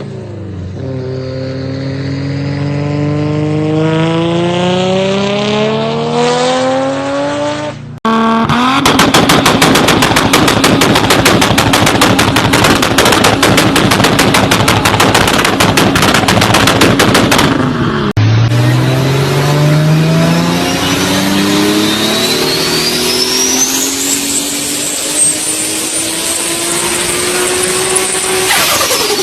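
Modified turbocharged car engines in three short clips. The first accelerates hard with its pitch climbing steadily. About 8 seconds in comes a rapid string of exhaust pops and bangs lasting about ten seconds. The last accelerates again, with a high turbo whistle rising alongside the engine.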